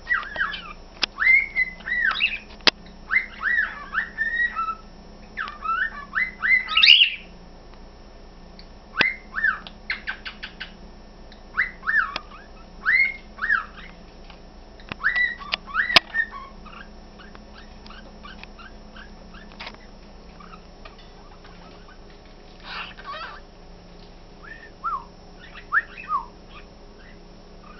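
Pet budgerigar and cockatiel whistling in a duet, repeating the same short rising-and-falling notes. The whistles come thick and fast through the first half, then thin out to a few scattered notes near the end, with a couple of sharp clicks along the way.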